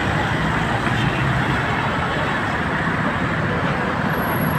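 Steady road traffic noise: cars and buses passing in a continuous rumble.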